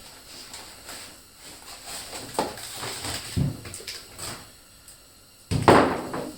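Handling noises from unpacking RC plane retracts: packaging rustling and light knocks, then a louder clunk near the end.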